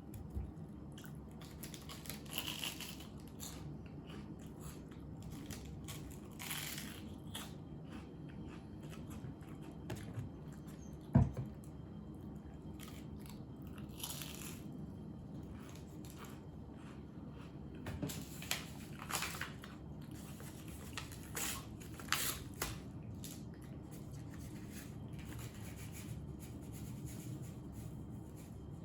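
Quiet eating at a table: chewing and occasional small clicks and rustles of tableware over a steady low background hum. One sharp knock about eleven seconds in, like a dish or chopsticks being set down.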